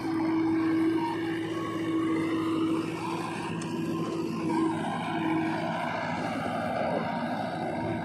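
Backhoe loader's diesel engine running under load while working its hydraulics, alongside an idling tractor's diesel, with a steady high whine that breaks up and fades out about halfway through.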